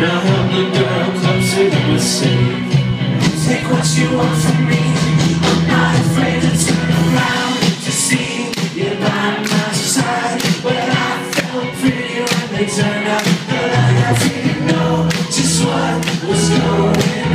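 A live rock band playing, with a man singing over electric guitars and drums, heard from the crowd.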